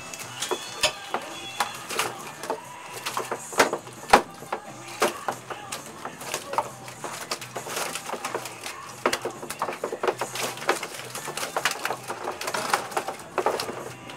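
Irregular knocks and clatter of fishing gear and fish on the deck of a commercial lingcod boat as the catch is hauled over the rail, the loudest knock about four seconds in, with gulls calling and a low engine hum underneath.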